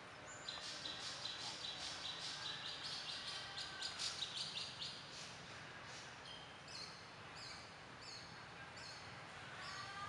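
Birds calling in the background. First comes a fast, high chittering trill for several seconds, then a string of short, high, falling chirps about twice a second.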